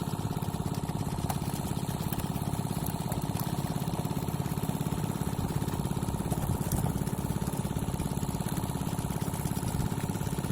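Small engine of a water-pumping machine running steadily with a fast, even chugging beat.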